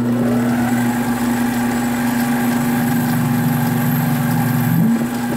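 A 7x12 mini lathe running, spinning up to speed in the first second and then holding a steady hum, while a ball nose end mill in the tailstock is fed into the spinning plastic spacer. Its note changes briefly near the end.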